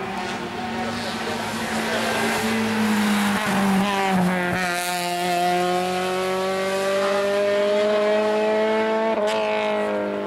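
Hill-climb race car's engine accelerating hard. A gear change breaks the note about four and a half seconds in, then the pitch climbs steadily, and another short break comes near the end.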